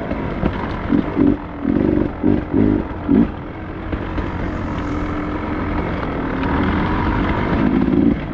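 Two-stroke dirt bike engine running, with short throttle blips in the first few seconds, then running more steadily and growing a little louder toward the end.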